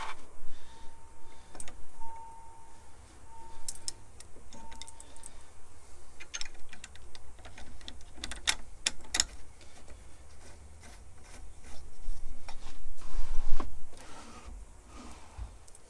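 Metal parts of an Atlas 10-inch lathe clicking and clinking as the production feed lever is fitted by hand to the cross slide, with two sharper clicks about halfway through.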